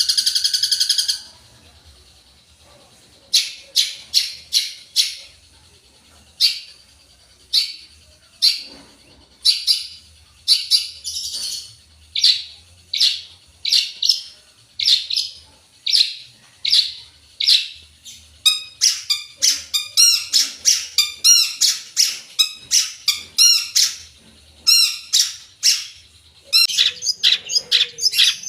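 Long-tailed shrike (cendet) singing its varied, mimicry-filled song: a harsh buzzy call in the first second, then sharp chirps repeated about once a second, quickening into rapid runs of notes in the second half.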